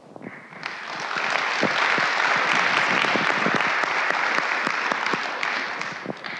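Audience applauding: the clapping swells over the first second or two, holds steady, and thins out near the end.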